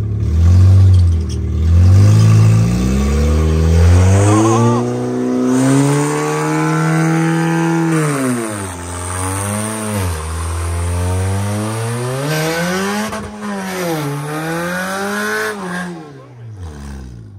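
Ford Fusion engine revving hard under a burnout as its driven front wheel spins on top of a vending machine. It begins with quick blips about once a second, then holds a long high rev, then climbs and drops several more times before falling away near the end.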